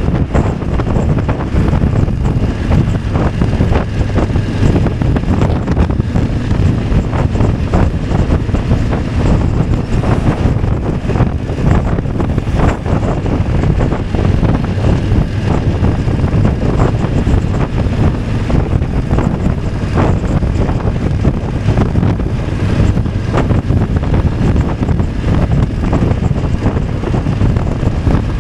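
Loud wind buffeting on the microphone of a BMW F 850 GS motorcycle under way, with its engine and road noise running steadily underneath.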